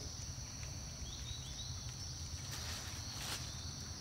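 Outdoor ambience of insects keeping up a steady high-pitched drone over a low rumble, with a few faint short high chirps about a second in.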